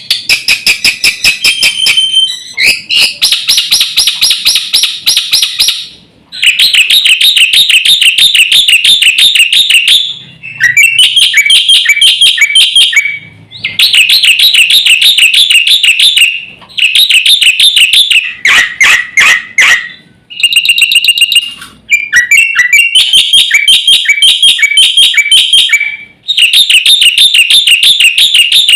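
Jalak putih (black-winged starling) singing loudly: rapid runs of repeated high notes in phrases a few seconds long, broken by short pauses.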